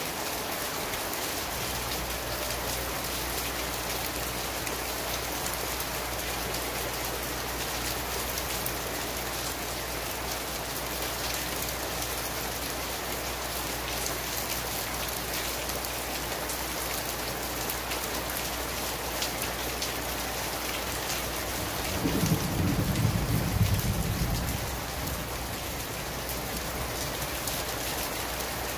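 Heavy rain pouring steadily and hissing on surfaces. About three-quarters of the way through, a low rumble of thunder swells for two or three seconds and then fades.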